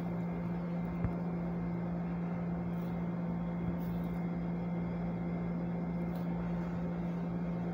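Steady low hum with a faint hiss under it: unchanging room background noise.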